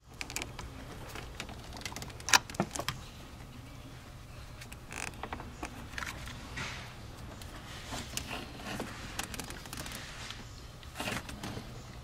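Utility knife blade scoring around the rubber insulation of a heavy battery cable, giving scattered light clicks, scrapes and handling noise, with one sharper click about two seconds in, over a low steady hum.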